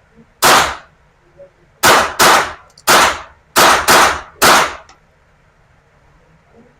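A GSG .22 LR rifle fires seven shots in an irregular string over about four seconds, with two quick pairs among them.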